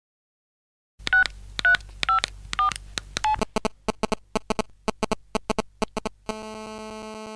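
Phone keypad dialling tones: after a second of silence, five two-tone button beeps about half a second apart, then a fast run of short beeps. A steady buzzing call tone sets in about six seconds in.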